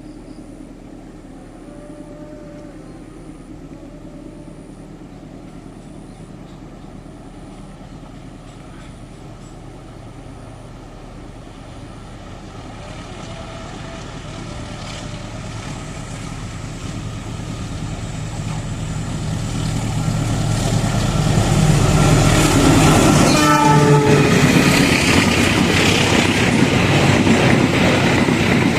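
Diesel-hauled train approaching: the locomotive's engine and the rolling wheels grow steadily louder from about halfway through, then run loud and close. A short horn blast sounds near the end.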